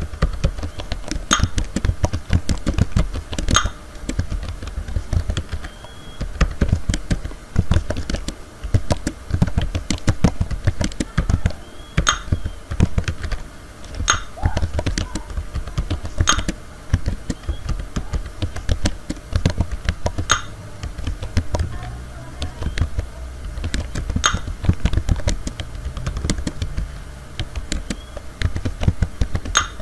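Touch typing on a computer keyboard: a steady, dense run of key clicks, with a louder stroke standing out every few seconds.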